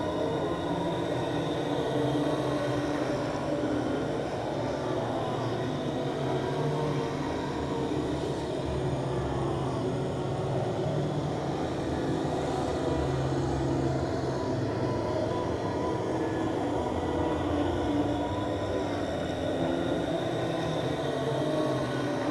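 Ghost moan sound effect: several held, slowly shifting low moaning tones layered over a continuous drone.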